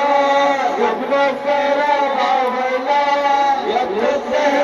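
A chanted Muharram mourning lament (noha), sung in long held notes that bend and slide between phrases.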